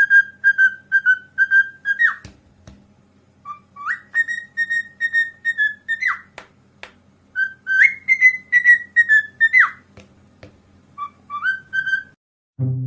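A parrot whistling in four phrases of short, repeated notes, about four a second. Each phrase ends with a quick swooping slide in pitch. A few faint clicks fall between the phrases.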